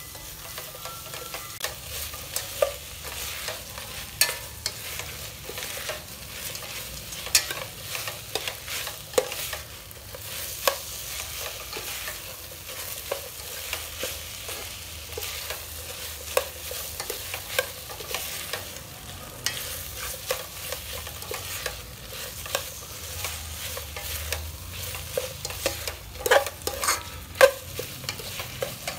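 Frog meat and spice paste sizzling in a stainless steel pot while a spatula stirs and scrapes it, with frequent sharp clinks against the pot and the loudest clinks near the end. The meat is being stir-fried until the water from the frog meat cooks off.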